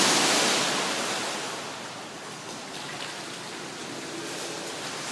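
Pool water splashing from a skimboard run, loudest at the start and dying away over about two seconds into a steady wash of churned, sloshing water.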